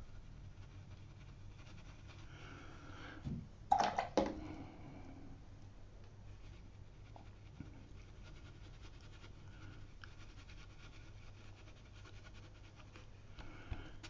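Faint scratching of a watercolour brush working on paper over quiet room tone, with a short, louder breath about four seconds in.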